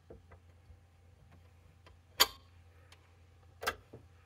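Clicks and clatter of test leads and probe clips being unclipped and handled on the bench, with two sharper, louder clicks about two and three and a half seconds in, over a faint steady low hum.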